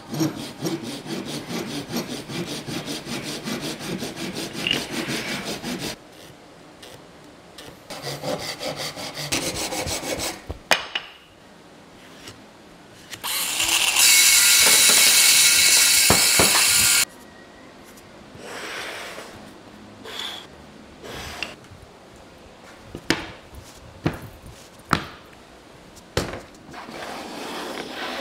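Woodworking in a workshop: a saw cutting wood in rapid back-and-forth strokes, then a loud steady hiss for about four seconds, then scattered knocks on wood.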